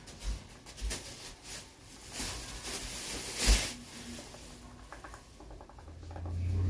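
Faint scratching and tapping of drawing work on a canvas, in scattered short strokes, with a louder scrape about three and a half seconds in and a low hum rising near the end.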